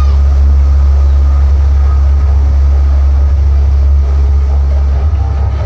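Carnival sound system blasting a very loud, steady deep bass drone, which breaks up about five seconds in.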